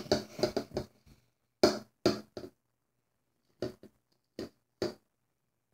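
Short, sharp clicks and taps of glue slime being stirred in a container: a quick run of them in the first second, then single taps every half second or so. The slime is still runny, not yet set.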